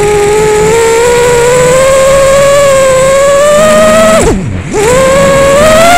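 Rooster 230 FPV quadcopter's brushless motors and propellers whining in flight, the pitch slowly rising with throttle. About four seconds in, the throttle is chopped and the whine drops steeply, then climbs back within about half a second as power returns, as in a flip.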